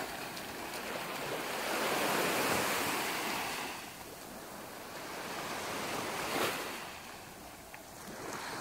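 Small waves washing up on a sandy beach. The surf swells and fades twice, once around two seconds in and again around six seconds.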